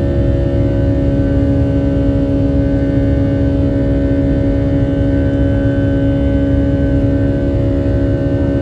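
Boeing 757-300 jet engines heard inside the passenger cabin during the climb after takeoff: a steady, loud drone with a low rumble and a few steady humming tones over it.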